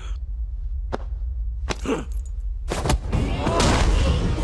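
Film fight sound effects: sharp hit impacts about one, two and three seconds in, with a short grunt, over a steady low rumble. A denser mix of effects comes in from about three seconds in.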